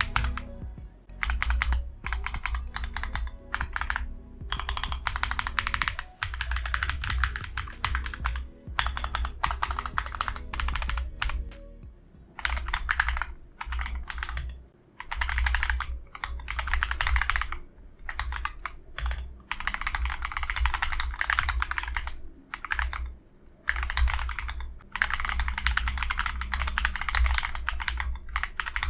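Typing on an Akko ACR Pro Alice Plus mechanical keyboard: fast runs of key clicks in bursts of a few seconds, with short pauses between.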